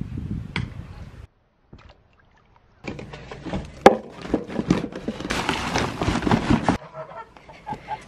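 A plastic scoop dug into a paper sack of poultry feed, with grain clattering and the sack rustling, and a rush of pouring feed that cuts off suddenly near the end.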